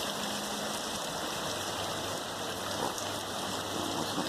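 Rain falling steadily, a continuous even hiss of water.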